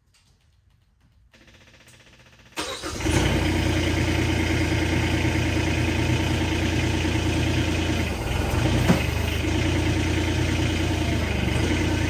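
Kubota SCL1000 compact track loader's engine cranking briefly, catching about two and a half seconds in, then running steadily at idle.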